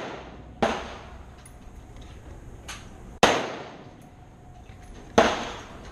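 Gunshots at a shooting range: three sharp reports with echoing tails, just after the start, about three seconds in and about five seconds in, with fainter shots from farther off between them.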